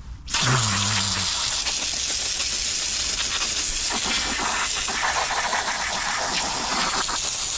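Loud, steady hiss of a jet from a hand-held hose nozzle, cutting in abruptly under half a second in, with a short low hum for about a second as it starts.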